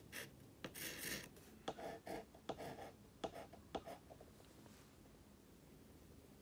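Pencil writing on a dark surface: a run of short, quick scratching strokes with brief pauses between them, stopping about four seconds in.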